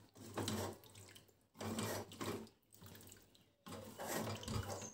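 Wet squelching of a hand squeezing and turning chicken pieces in a sour-yogurt and lemon marinade in a steel bowl, in three short bouts.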